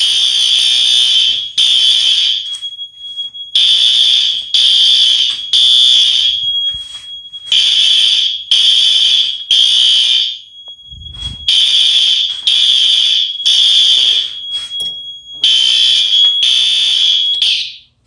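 System Sensor SpectrAlert Advance horn strobe sounding pretty loud in the temporal-three evacuation pattern: three blasts, a pause, then again, over and over. The System Sensor 2400 smoke detector has put the fire alarm system into alarm. A thin steady high tone carries through the pauses, and the horn cuts off near the end.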